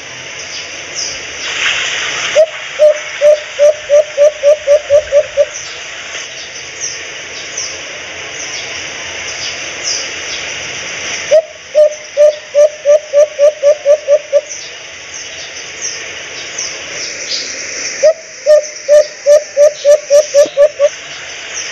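White-eared brown dove (alimukon) calling: three runs of about a dozen short, low hoots, roughly four a second, each run lasting about three seconds. Faint high chirps of small birds and a steady hiss run underneath.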